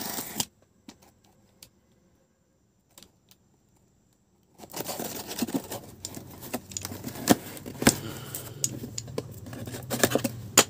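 Utility knife slitting the packing tape along the seam of a cardboard box, then the cardboard flaps scraping and rustling as the box is pulled open, with many sharp clicks and crackles. The scraping starts about four and a half seconds in, after a nearly silent stretch with only a few faint clicks.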